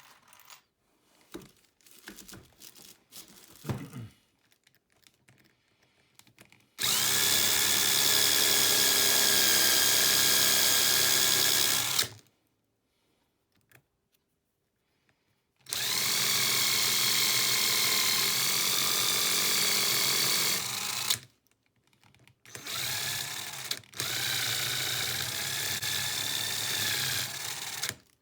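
Small handling clicks, then an electric drill-type rotary power tool run three times, machine-polishing metal spoon lure blanks; the third run is quieter. During the second and third runs its whine wavers in pitch, as when the work is pressed against the spinning tool.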